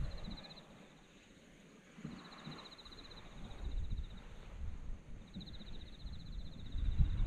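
An insect trilling in three short phrases of fast, even pulses, each about a second long. Under it is a low rumble on the microphone that grows louder near the end.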